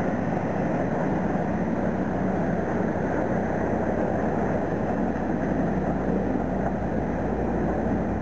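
Steady low engine drone under a constant rumble of background noise, with no breaks or sudden sounds.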